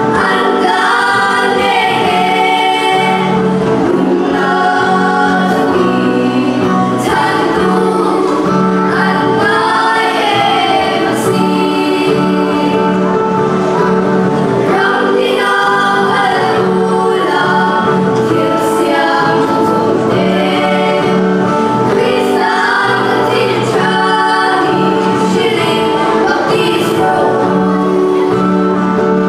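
A small group of girls singing a gospel song together in unison, over sustained low accompaniment chords that change every few seconds.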